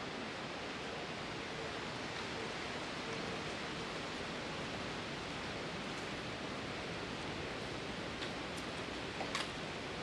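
Steady rustling hiss of wind moving through the leaves of the tree canopy, with a few faint clicks near the end.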